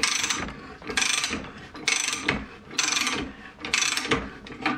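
Socket ratchet wrench being swung back and forth on a large hex nut on a threaded steel rod, its pawl clicking in a short burst on each stroke, about once a second, five times.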